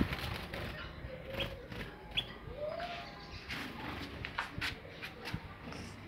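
Small cage birds giving a few short, high chirps, with scattered light clicks around the cage.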